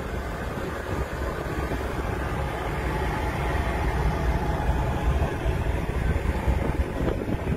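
Wind buffeting the microphone on the open deck of a car ferry under way, over the steady low rumble of the ship's engines and the passing sea.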